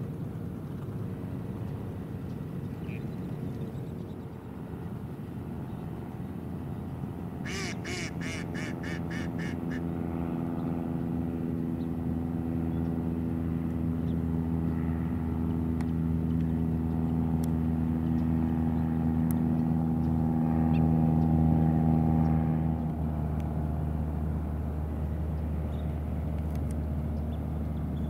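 A steady engine drone at a constant low pitch, slowly growing louder and then dropping off about three-quarters of the way through. About eight seconds in, a duck gives a quick run of about eight quacks.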